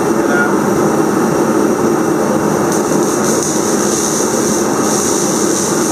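Steady machine noise: a continuous low drone with a hiss over it, unchanging throughout.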